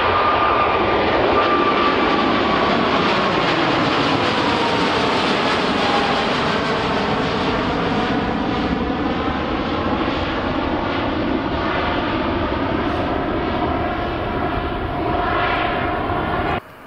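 Jet airliner passing low overhead: loud, steady engine noise with a whine that slowly falls in pitch as it goes by, cut off abruptly near the end.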